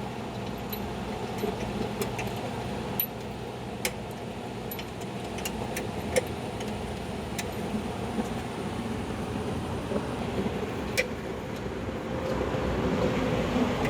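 Scattered light clicks and clinks of small metal mower-deck parts and tools being handled, over a steady low background hum.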